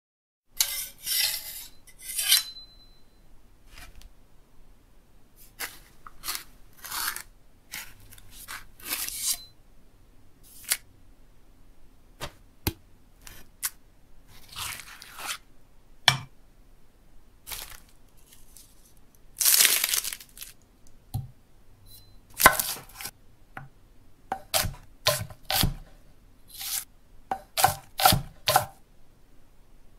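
Irregular handling noises of rustling and tearing, coming as a string of short bursts with quiet gaps between them. The longest and loudest burst comes about two thirds of the way through.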